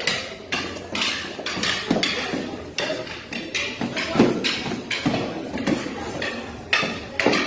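Rattan and foam-padded practice sticks striking each other in sparring: irregular clacks and duller thwacks, about two a second, with a few heavier hits near the middle and end.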